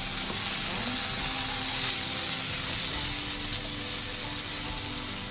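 Meat and vegetables in curry powder sizzling steadily in a hot pot.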